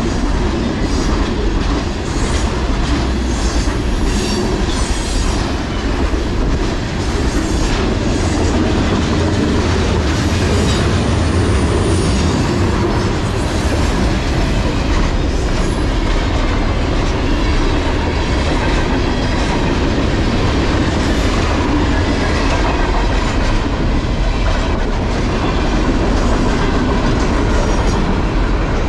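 Freight cars of a CSX mixed manifest train rolling past close by at about 41 mph. A steady loud rumble of steel wheels on rail carries a clickety-clack over the rail joints and some high wheel squeal.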